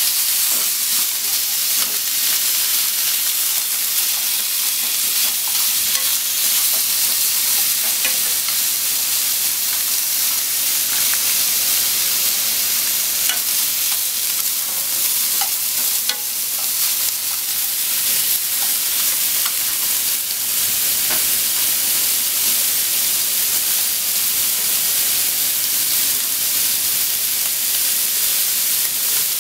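Cubes of pork belly sizzling steadily in a non-stick frying pan, with light ticks and scrapes of wooden chopsticks turning the pieces.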